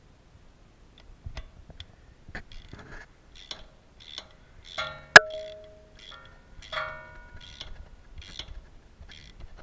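Irregular metallic clicks and clinks of a socket tool working the screws that hold the electric parking-brake motor on a rear brake caliper. About five seconds in comes one much louder sharp metal clang that rings on briefly.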